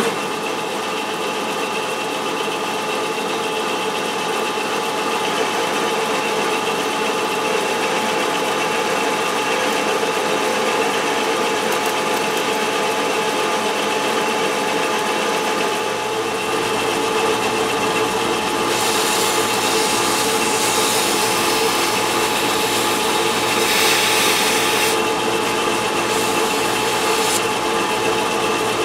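Metal lathe running under power while turning down a small steel tube in a four-jaw chuck. It makes a steady whirring hum with several constant tones, and a higher hiss joins for several seconds past the middle.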